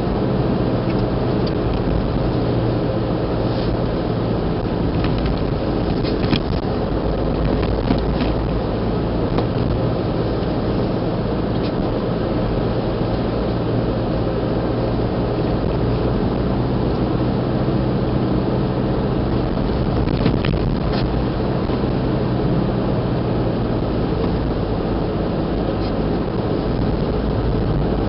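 Car engine and tyre noise heard from inside the cabin, a steady drone as the car drives along, with a few faint clicks or knocks here and there.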